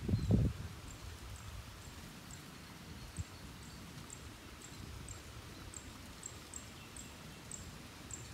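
Quiet riverside ambience with a thin, high chirp repeating about two to three times a second, quickening toward the end, over a low outdoor murmur. A brief low rumble at the very start is the loudest thing.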